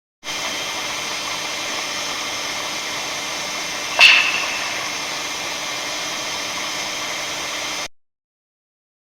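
A single sharp clap about four seconds in, with a short ringing tail, over steady recording hiss: a clapping sound attributed to the northern lights. The hiss starts abruptly and cuts off near the end.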